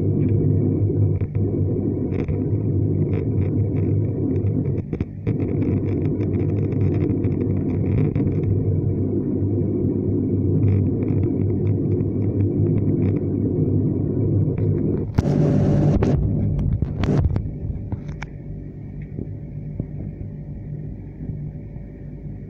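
Turboprop engine of a Dash 8 Q400 airliner heard from inside the cabin: a steady low drone with the propeller turning at low taxi power. About fifteen seconds in there is a brief loud noise lasting about a second, then a shorter one, after which the engine sound drops noticeably quieter.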